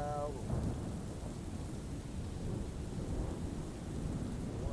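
Steady rain-like noise with a low rumble, typical of a rain-and-thunder ambience bed, under the reciting voice's echo, which fades out in the first half-second.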